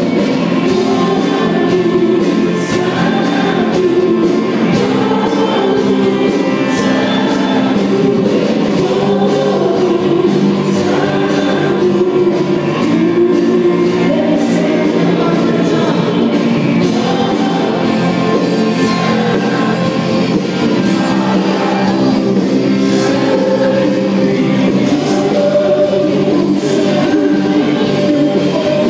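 Christian worship music: a group of voices singing a slow song together over a band.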